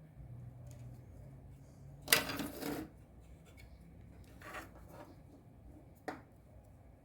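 Small hard objects being handled on a workbench: a sharp clatter with a short scrape about two seconds in, then two lighter knocks.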